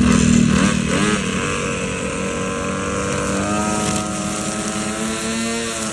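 Ryobi 25.4cc two-stroke brush cutter engine running. Its pitch rises about half a second in, holds steady, and shifts to a new steady note about three and a half seconds in.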